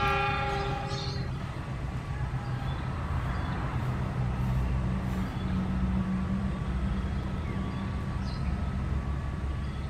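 Diesel passenger train behind a CC 206 diesel-electric locomotive pulling away, with a steady low engine rumble. A horn sounds for about a second at the start.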